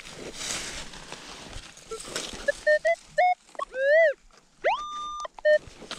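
Minelab Equinox 800 metal detector sounding on a target as its coil is swept over the dug hole. From about halfway in it gives several short beeps, then a tone that bends up and down, then one that slides up and holds briefly, then a last short beep. Faint scuffing comes before the beeps.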